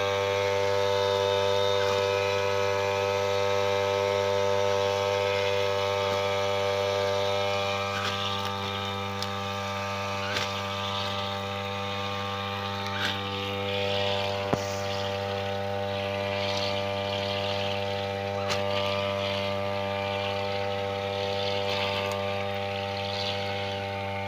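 Brush cutter running at a steady speed while cutting grass: an even engine drone, with a rougher hiss that comes and goes as the head sweeps through the grass, and a few sharp clicks now and then.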